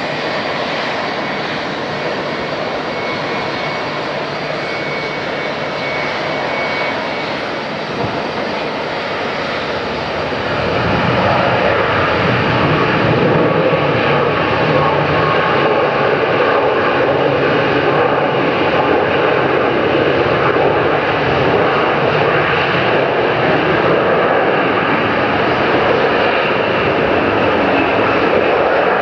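Boeing 777-200ER's twin GE90 jet engines during landing: a steady jet roar through the flare and touchdown, growing louder about ten seconds in and staying loud as the airliner rolls out along the runway.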